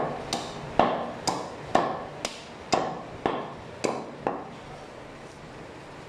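Heavy meat cleaver chopping goat meat on a round wooden block: about ten sharp chops, roughly two a second, stopping a little after four seconds in.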